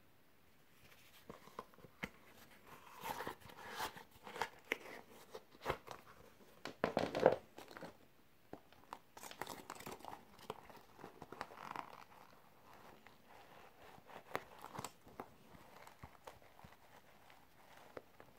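Umbro Stealth Pro HG football boots handled and turned over by hand: irregular rustling and light knocks and clicks from the synthetic uppers and studs, loudest about seven seconds in.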